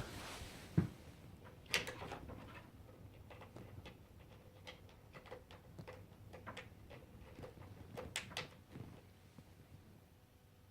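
Faint, irregular clicks and knocks of charger cables and plugs being handled and connected, with a couple of sharper knocks near two seconds in and about eight seconds in. No beeping.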